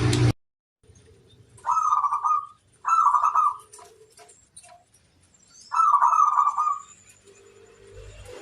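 Zebra dove (perkutut) cooing: three trilled coo phrases, the first two close together and the third a few seconds later.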